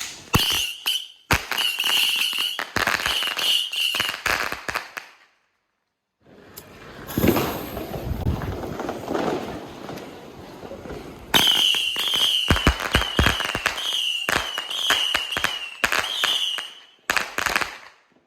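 A 50-shot 'flying mouse' firework cake firing: a rapid run of wavering high whistles with sharp pops and crackles. About 5 s in it stops abruptly, then comes a stretch of hissing and crackling, and the whistles and pops start again about 11 s in.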